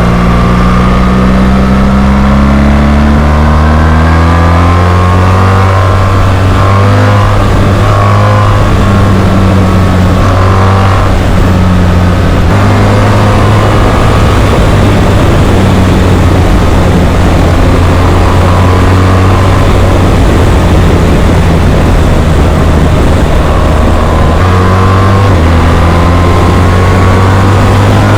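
BMW R 1300 GS boxer-twin engine running loud through an SC Project Rally-X titanium slip-on exhaust. The pitch climbs over the first few seconds, then holds a steady note, with a small change in pitch near the end.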